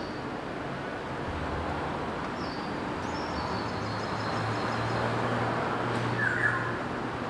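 City street ambience: a steady wash of traffic noise with a low engine hum that swells a little in the second half. A few short high chirps sit on top.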